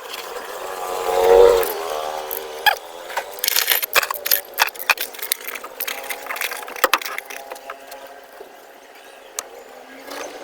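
Irregular metal clinks and taps of cylinder-head bolts and hand tools being fitted to a Kia JT engine's head. In the first two seconds a passing vehicle's engine hum rises and fades.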